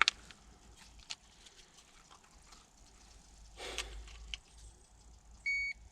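A sharp click at the start and a few small clicks and knocks, a brief rustle about three and a half seconds in, then one short, high electronic beep near the end.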